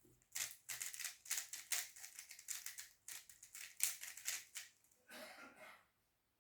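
3x3 speedcube being turned quickly, making a rapid run of plastic clacks in uneven bursts, followed a second or so later by a brief softer rustle.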